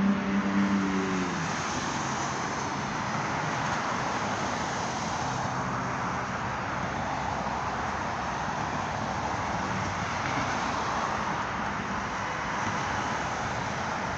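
Steady traffic noise of cars on a multi-lane expressway below, an even wash of passing vehicles with no single event standing out.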